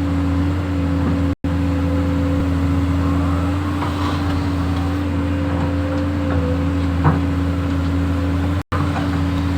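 Excavator engine running steadily at a constant pitch. The sound cuts out briefly twice, and there is a sharp click about seven seconds in.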